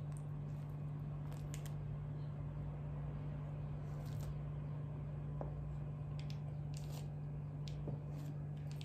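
Metal bench scraper pressing down through soft rolled börek dough and touching the metal baking tray, giving faint, brief clicks and scrapes every second or two over a steady low hum.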